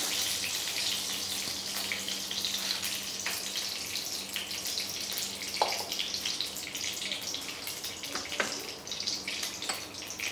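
Ghee heating in a hot aluminium kadhai, sizzling with a steady crackling hiss and a few small pops.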